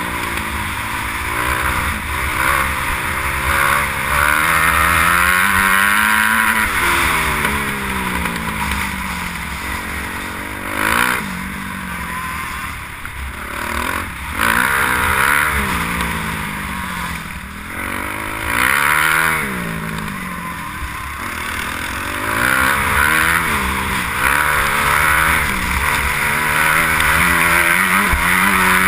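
Kawasaki KX250F four-stroke single-cylinder motocross engine under way, revving up and dropping back over and over as it accelerates and shifts gear, with wind rush on the helmet-mounted camera.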